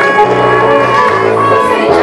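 Live gospel praise music: a group of singers over a band with sustained bass notes.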